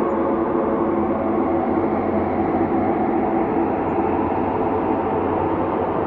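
Synthesized ambient space drone: a steady, dense low rumble with several held tones layered over it, drifting slowly without any beat or break.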